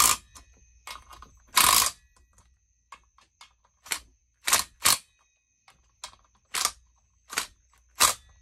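Irregular sharp metal clicks and clacks, about ten separate knocks with short quiet gaps, from chainsaw parts being handled and fitted during reassembly.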